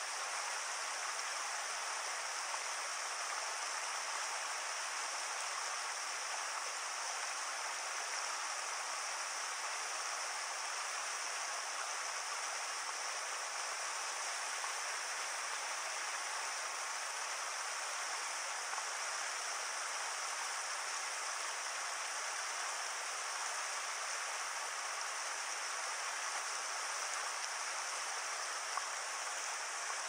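Mountain river rapids rushing over boulders: a steady, unbroken rush of water.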